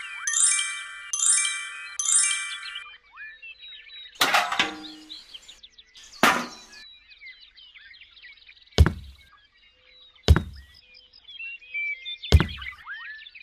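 A short chiming jingle repeats a few times, then stops. Birds chirp behind a series of sharp knocks and thuds, one every couple of seconds; the first rings briefly like struck metal.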